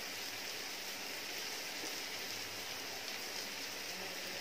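Butter sizzling steadily in a kadai with garlic, ginger, green chillies and freshly added chopped onion frying in it.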